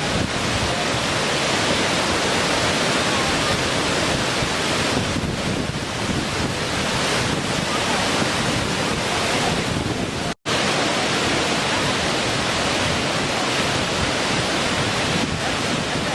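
Small waterfall: a steady, even rush of falling water, cut to silence for a split second about ten seconds in before the same rush resumes.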